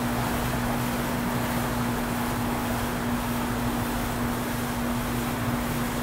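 Steady hum of a mass of honey bees over the open frames of a hive: one unbroken droning note over a constant hiss.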